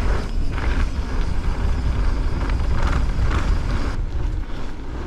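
Mountain bike tyres rolling down a packed dirt trail, with a heavy, uneven low rumble of wind on the microphone and faint crackles of dirt and debris under the wheels.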